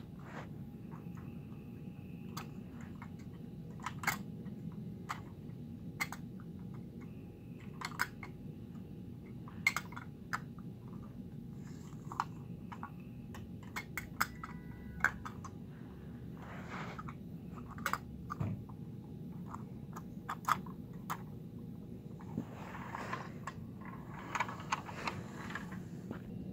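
Scattered small clicks and light taps from a First Gear 1/34 scale toy garbage truck and its toy dumpster being handled and moved about, over a steady low hum.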